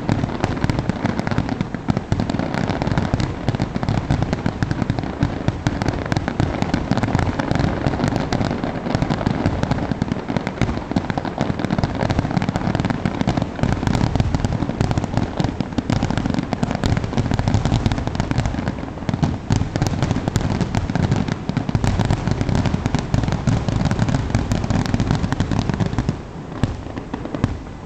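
Fireworks display finale: aerial shells bursting in a dense, continuous barrage, dropping away about two seconds before the end.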